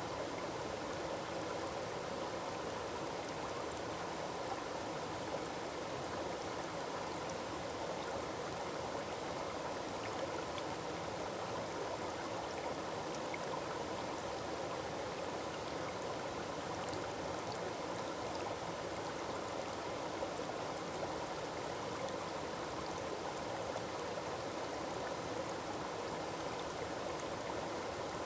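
Small forest waterfall: water falling and rushing over rocks in a steady, even splashing.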